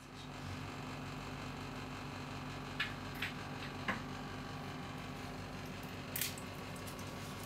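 Quiet room tone with a steady low electrical hum, broken by a few faint clicks, three close together around three to four seconds in and one more about six seconds in.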